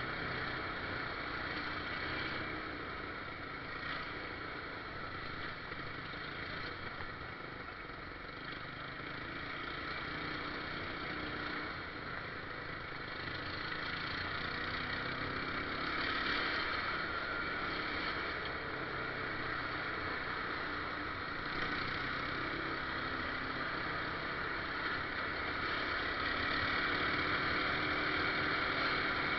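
A motor vehicle running steadily, an even mix of engine and rolling noise that swells slightly around the middle and again near the end.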